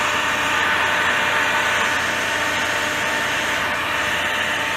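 Stanley 2000-watt heat gun running steadily, its fan blowing hot air in an even whoosh to dry a wet-sanded wooden tabletop.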